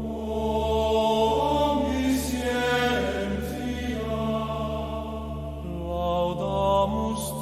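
Music: a steady low drone under held tones that change pitch every second or two, some with a slight waver.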